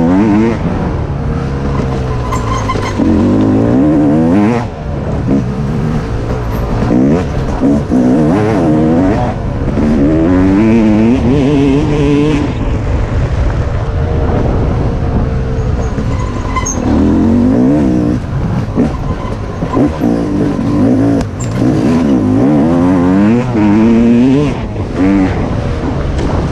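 Dirt bike engine revving up and easing off again and again, its pitch rising and falling every couple of seconds as the bike is ridden along a trail.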